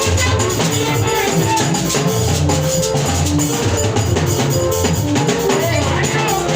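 Music with a drum kit and percussion over a strong, repeating bass line, with melodic notes above.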